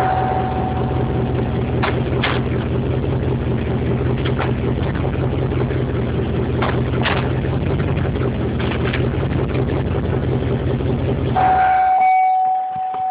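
Chevrolet TrailBlazer SS 6.0-litre V8 idling steadily, with a handful of short sharp knocks, the drivetrain clunk that comes as the transmission is shifted into gear. Near the end a steady chime-like tone sounds and the engine shuts off.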